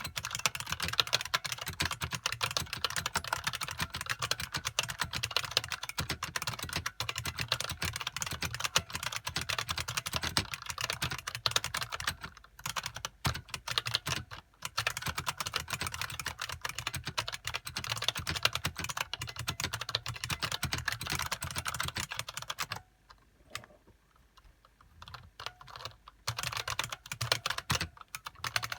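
Typing on a 1987 IBM Model M SSK keyboard, its buckling-spring keys clicking in a dense run. Two brief breaks come just before halfway, and there is a pause of about three seconds about three-quarters through.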